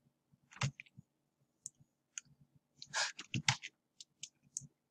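Irregular clicks of a computer mouse and keyboard being worked at a desk, with a quick run of several clicks about three seconds in.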